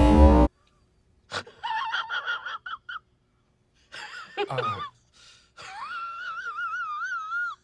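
Loud music cuts off about half a second in. Then come short, squeaky, high-pitched vocal sounds, and from a little past halfway one long high wail that wavers up and down in pitch.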